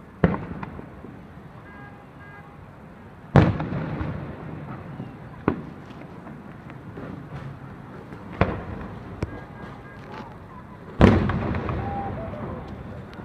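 Fireworks display: aerial shells bursting with sharp booms, each followed by a rolling rumble of echo. About five bursts, the loudest about three seconds in and near the end.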